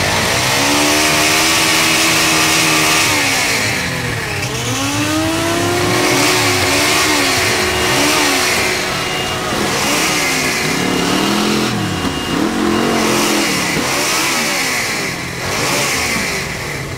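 Motorcycle engine revved hard during a burnout, its rear tyre spinning against the road. It is held high for about three seconds, then revved up and down over and over, roughly once a second, over a steady hiss.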